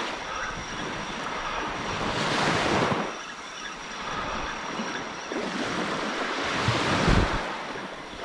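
Small surf breaking and washing up the sand at the water's edge, swelling twice: about two and a half seconds in and again near the end.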